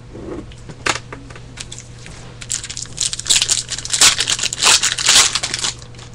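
Trading card pack wrapper being torn open and crinkled: a run of rustling, crackling bursts from about two and a half seconds in, after a single sharp click about a second in.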